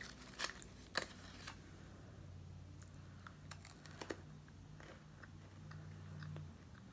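Sharp crinkles and clicks of a wrapper being pulled off a chocolate candy, mostly in the first second and a half, then a few more clicks as the candy is bitten about four seconds in.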